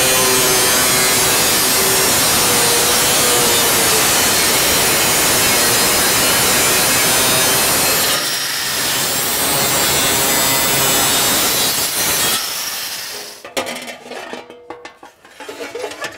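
Electric angle grinder with a cutoff wheel slicing through a thin aluminum heat shield: a loud, steady grinding that dips briefly about eight seconds in and stops about twelve seconds in. Light clattering and knocks follow.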